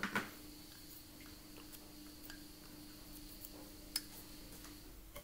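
Faint clicks and ticks of a Zippo lighter being handled and turned over: two close together at the start and a sharper one about four seconds in, over a faint steady hum.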